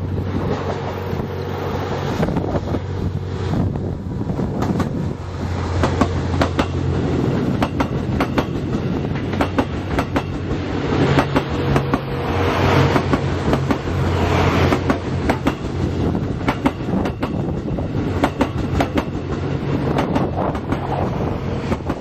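Twilight Express Mizukaze (JR West 87 series) passing close at a steady, unhurried speed. Its wheels click repeatedly over the rail joints as carriage after carriage goes by, over a steady low drone.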